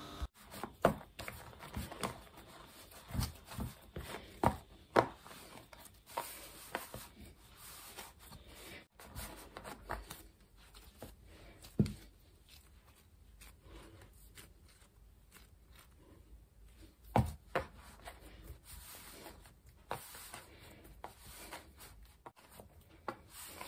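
Pizza dough being kneaded by hand on a plastic lid: irregular soft pats, squishes and rubs as the dough is pressed, folded and turned. A couple of sharper knocks stand out, the loudest about halfway through.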